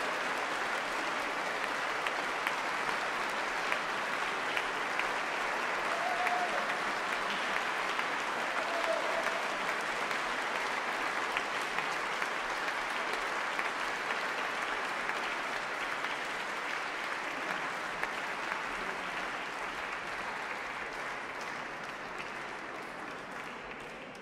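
Concert audience applauding steadily: dense, even clapping that gradually fades away over the last several seconds.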